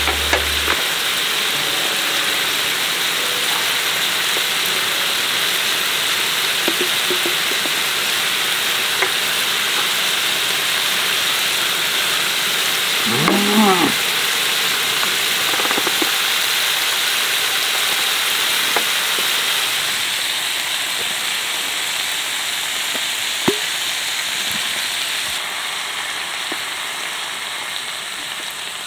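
Meat sizzling steadily in a hot pan, a dense even hiss that slowly dies down toward the end, with a few small clicks. About halfway through there is a short wavering pitched sound.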